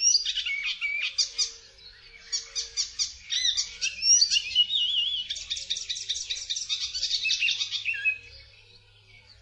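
Icterine warbler singing a fast, varied song of rapid chattering and whistled notes, with a brief pause about two seconds in; the song fades away about eight seconds in.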